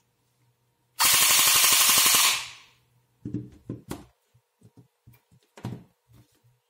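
A bare airsoft AEG gearbox (high-torque motor, 18:1 gears, M100 spring) firing one full-auto burst of about a second and a half, starting about a second in, running at roughly 12 rounds a second on a 7.4 V 900 mAh LiPo, the motor winding down briefly after. A few knocks and clicks follow as the battery's T-plug connector is pulled apart.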